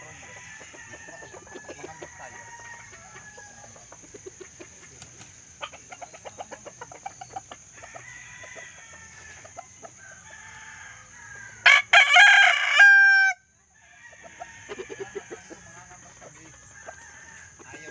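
A gamefowl rooster crows once close by, a short, loud crow of about a second and a half about two-thirds of the way in, over softer clucking and calls from the flock.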